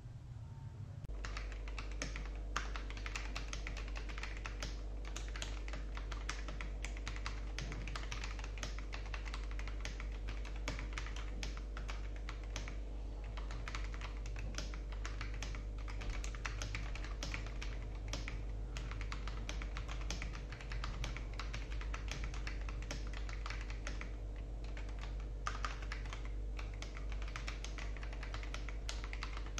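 Continuous fast typing on a mechanical keyboard with PBT Cherry-profile keycaps and Akko CS Matcha Green switches, a dense run of keystroke clicks that starts about a second in, over a steady low hum.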